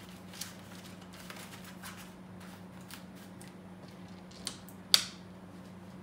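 A lacquered wooden Montecristo cigar box being handled: faint paper rustling and light taps, then the lid knocks shut with a sharp wooden clack about five seconds in. A low steady hum runs underneath.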